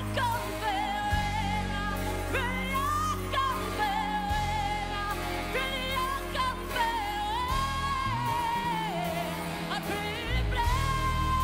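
A woman singing a pop song live with a band, holding long notes with vibrato over a steady bass line.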